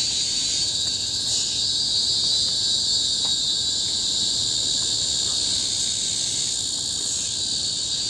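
A chorus of cicadas shrilling without a break, a loud, steady, high-pitched drone.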